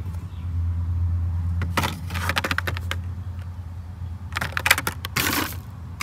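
A Hot Wheels blister card being handled and turned over, its plastic bubble and cardboard crinkling and rattling in two short bouts, about two seconds in and again near the end. A steady low hum runs underneath.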